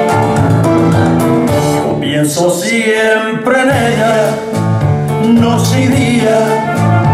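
Two men singing a pasodoble into handheld microphones over instrumental accompaniment with a steady, regular beat. A held vocal line with vibrato comes in about two seconds in and returns near the end.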